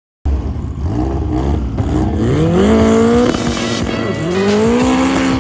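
Race car engine under hard acceleration. It starts abruptly, and its pitch climbs steadily, drops briefly about three and a half seconds in as it shifts gear, then climbs again.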